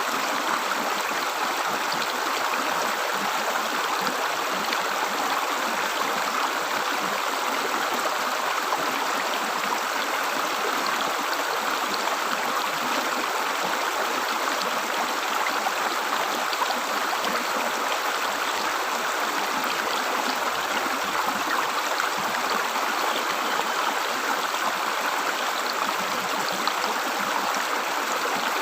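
A small river or stream flowing and gurgling over rocks: a steady rush of water.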